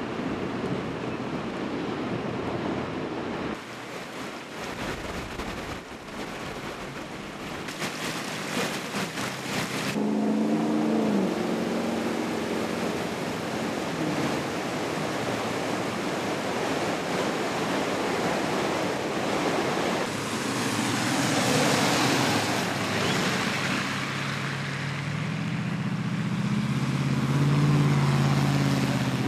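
Floodwater rushing: a swollen, muddy creek and overflowing culvert give a steady, loud rush, with wind buffeting the microphone. A low hum joins about ten seconds in and again near the end.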